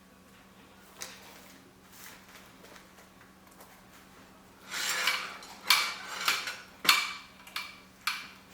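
Small tools being handled: a rustle, then a quick irregular run of sharp metallic clicks and clinks over the last few seconds.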